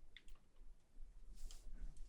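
Faint, wet mouth clicks and squishes of someone chewing raw Korean beef tartare (yukhoe), a few soft smacks with the loudest about a second and a half in.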